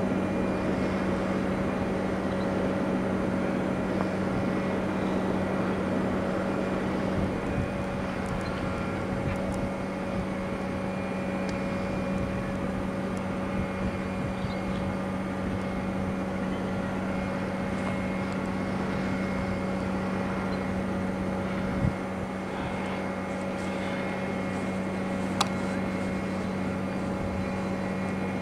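Steady machine drone: a constant low hum with fainter steady higher tones above it. A sharp click comes about 25 seconds in.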